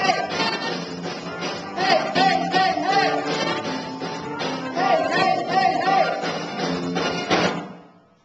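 Live band music with a drum kit keeping the beat under a male singer on a microphone, a melodic phrase repeating every few seconds. The music stops together about seven and a half seconds in, ending the song.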